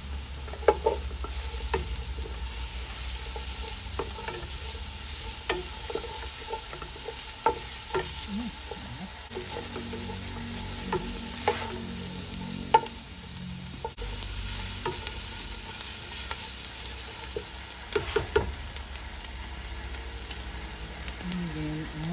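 Sliced red onion and ginger sautéing in a pot with a steady sizzle, while a wooden spatula stirs them, knocking against the pot now and then.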